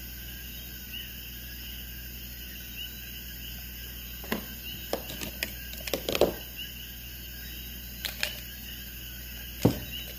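Light clicks and taps of makeup being handled, scattered through the middle, with a louder click near the end. Underneath runs a steady low hum and faint high chirps repeating at a steady pace.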